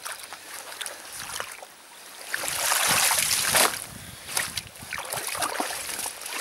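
Water splashing and sloshing at the water's edge, with a louder burst of splashing about two and a half seconds in and scattered small knocks.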